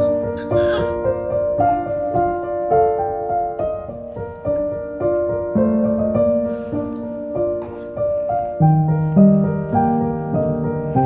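Background music played on piano, a gentle melody over sustained chords.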